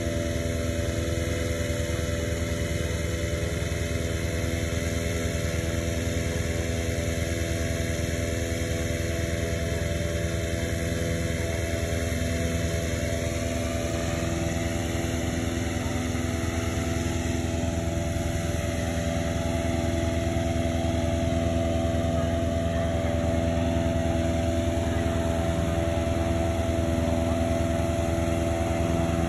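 Petrol-engine inflator fan running steadily, blowing cold air into a hot air balloon envelope during cold inflation.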